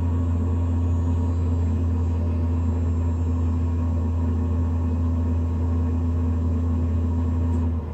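Navien NCB-240 combi boiler's combustion fan running with a loud, steady low drone and hum, cutting off just before the end.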